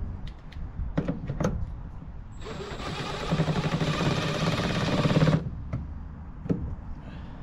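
A tool running in the small bolt that holds a BMW E46 door handle: a few sharp clicks, then about three seconds of rapid mechanical rattling that stops suddenly, then another click near the end.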